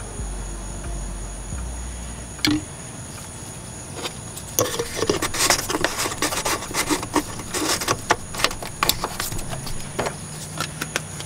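Plastic power steering reservoir cap being screwed back on and handled: a single click, then a run of quick clicks and rattles lasting several seconds. A steady high insect drone sounds underneath.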